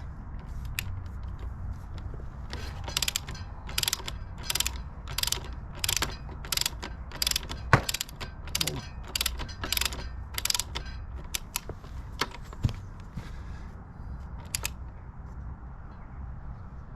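Ratchet wrench clicking as the motorcycle's front axle bolt is turned in, in a steady run of back-swing bursts about every half second, then a few single sharp clicks.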